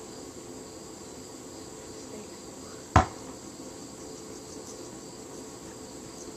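A single loud impact of a basketball about halfway through, over a steady high chirring of insects.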